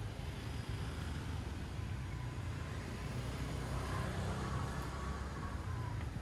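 Street traffic: cars and motor scooters running along the road in a steady low rumble, with a faint engine whine rising over it about halfway through.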